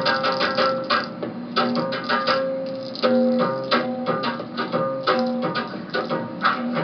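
Music on a plucked string instrument: quick picked notes and strummed chords in a steady rhythm, several strokes a second.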